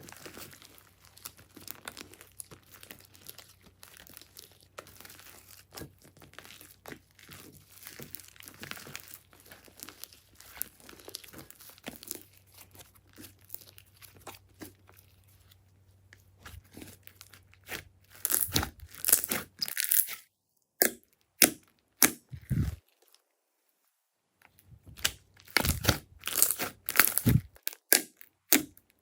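Slime being handled and squished by hand, a dense run of sticky crackling and clicking. About two-thirds of the way through it grows much louder, with a short pause before louder squelching clicks resume.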